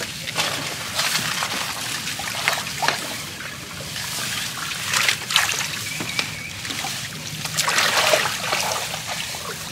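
Water splashing, sloshing and dripping in irregular surges as a fishing longline is worked hand over hand from a small boat, with louder splashes about halfway through and again near the end.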